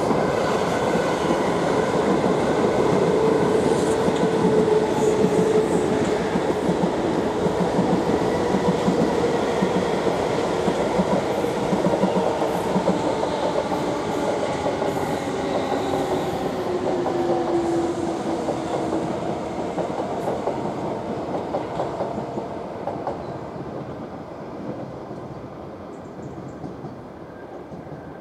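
South Western Railway electric multiple unit passing close by, its wheels rumbling and clattering over the rails and junction, with a faint whine that drops in pitch. The sound fades away over the last few seconds as the train recedes.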